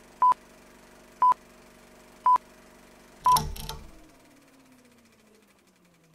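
Film-leader countdown sound effect: three short high beeps a second apart over a steady low hum, then a fourth beep about three seconds in that lands with a heavy hit. After the hit, a low tone slides slowly downward as it fades.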